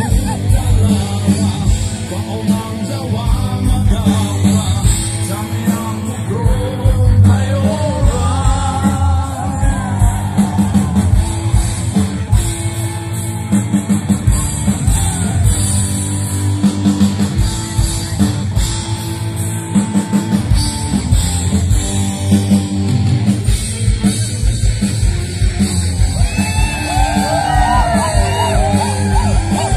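Live rock band playing loud through a big sound system, with a singer and strong bass, heard from within the crowd; the crowd yells and cheers over the music.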